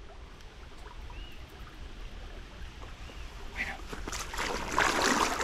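Steady rush of water in a small canal, with louder, rougher noise near the end.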